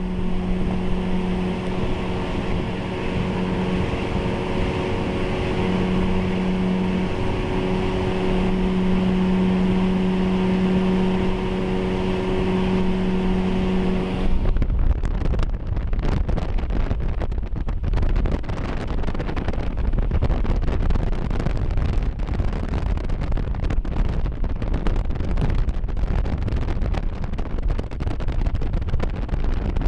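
Motorboat engine running steadily with an even hum. About halfway through, the sound turns into a rough, low rumble with wind buffeting the microphone as the boat runs at speed.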